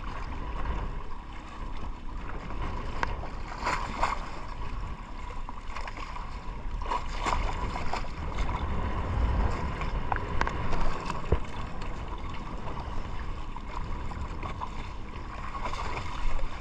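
Sea water rushing and splashing against the hull and outrigger floats of a small outrigger fishing boat under way, with wind buffeting the microphone and irregular sharper splashes now and then.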